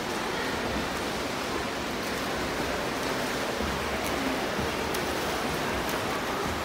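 Steady rushing wash of splashing water from swimmers' freestyle strokes in an indoor pool.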